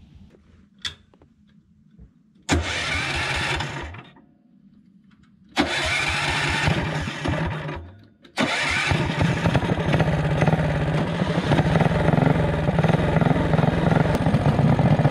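Home-made go-kart's small petrol engines being started: two short bursts of running that cut out, then at about eight seconds an engine catches and runs steadily.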